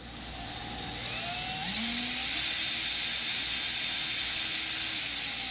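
Electric drill spinning a speedometer cable to bench-test a rebuilt C3 Corvette speedometer. The motor whine speeds up over the first two seconds, holds steady at high speed, then winds down near the end.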